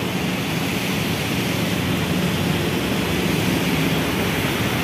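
Heavy rain falling: a steady, even hiss.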